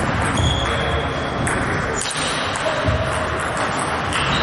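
Table tennis rally: the celluloid ball clicking off bats and table, with the players' footwork thudding and squeaking on the sports-hall floor, echoing in a large hall.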